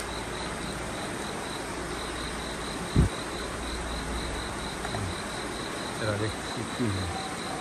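A cricket chirping steadily, a rapid train of short high pulses about four a second, with a brief pause after the first second. A single dull thump about three seconds in.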